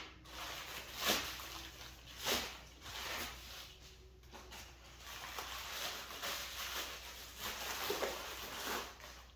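Packing material and parts being handled and rustled while unpacking a box, with sharper rustles about one and two seconds in and steadier rustling through the second half.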